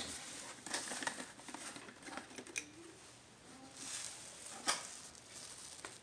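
Faint rustling and rubbing of a rag wiping car window glass with isopropyl alcohol to lift leftover tint glue, with a few light clicks and one sharper tap about three-quarters of the way through.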